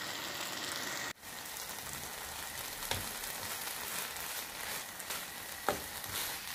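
A mix of cooked green gram and melted jaggery sizzling steadily in a pan as its moisture cooks off, with a couple of faint knocks from the stirring spatula. The sizzle breaks off sharply for a moment about a second in.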